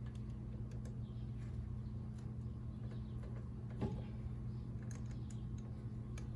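Light, scattered clicks of hand tools working at a brake caliper while the bleeder screw is tightened closed, with one sharper knock about four seconds in, over a steady low hum.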